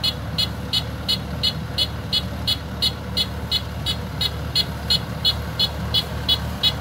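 Kubota DC105X combine harvester's engine running steadily while the machine sits stuck in soft mud, with a short, high-pitched chirp repeating evenly about three times a second over the low engine sound.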